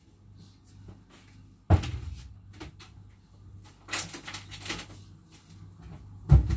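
Knocks and clatter of kitchen handling: a sharp knock nearly two seconds in, a brief rattle of lighter knocks around four seconds, and a heavy thump near the end.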